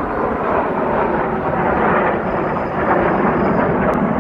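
Loud, steady jet engine noise from a formation of Blue Angels F/A-18 Hornets flying overhead.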